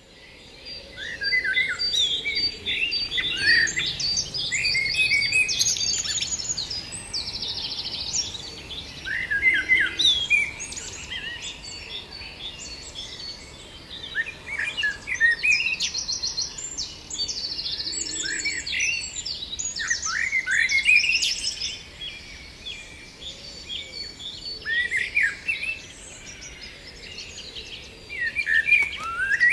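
Several songbirds singing at once, a busy chorus of quick chirps and whistled phrases, with a rapid trill now and then.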